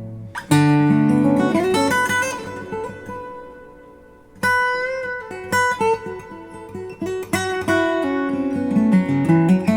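Recorded music played back over Dynaudio Heritage Special loudspeakers: acoustic guitar picking and strumming sustained chords with sliding notes, no singing. A strong strum lands about half a second in and another near the middle, after the sound has faded down.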